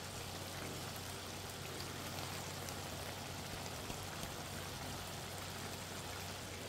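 Thick tomato, meat and zucchini sauce simmering in a frying pan: a steady sizzling, bubbling sound, with a low steady hum underneath.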